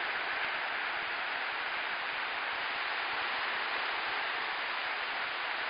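Steady hiss of surf washing onto a sandy beach.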